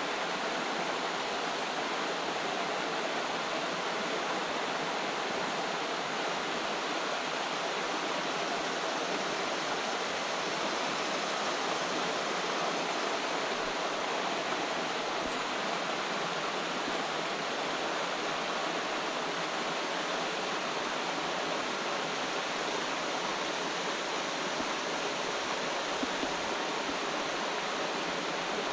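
Steady rush of flowing water from a stream or small cascade, an even hiss that does not change.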